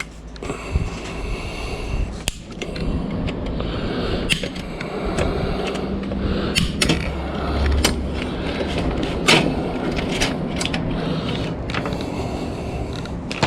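Cutters snipping through an autoclave's internal wiring: sharp irregular clicks every second or two, mixed with the clatter of wires and metal being handled.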